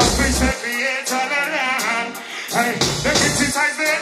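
Live reggae band playing over a concert PA with vocals over it; a deep bass note comes in at the start and again about three seconds in.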